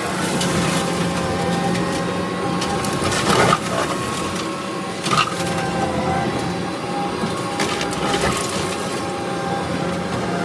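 Kubota SVL65 compact track loader running a brush cutter through brush, a steady machine drone with wood being crushed and splintered. There is a louder crack about three seconds in and another about five seconds in.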